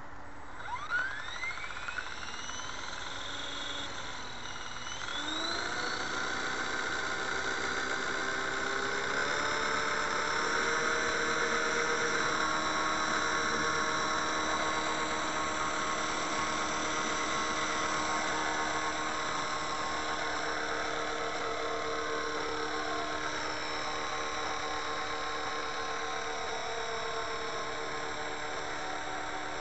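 Radio-controlled JetRanger scale helicopter spooling up: its motor whine climbs in pitch over the first few seconds, then settles into a steady whine with rotor hum as it lifts off and flies.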